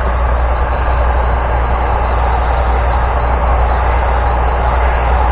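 Heat gun running on its highest setting, a steady blowing fan noise with a low hum, as it heats a piece of 3-inch PVC pipe to soften it.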